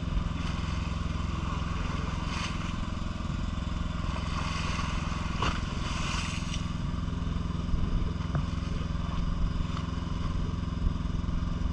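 Fishing boat's motor running with a steady low drone, with a few short faint splashes or knocks in the first half.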